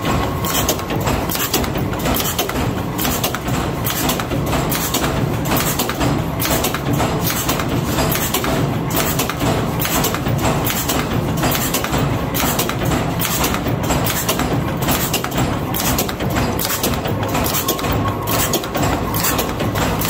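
Power press running a progressive tool that stamps oval eyelets out of stainless steel strip: a continuous run of rapid, evenly spaced metallic punch strokes over the steady drone of the press drive.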